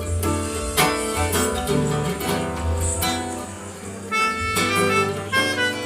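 Instrumental music from a small acoustic ensemble: strummed guitars over a steady bass, with a held melody line of long notes about four seconds in.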